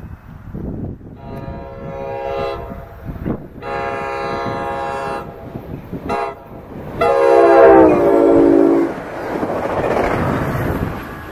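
Commuter train horn sounding the grade-crossing signal as the train approaches: long, long, short, long. The last blast is the loudest and drops in pitch as the cab car goes by, followed by the rushing noise of the train passing close.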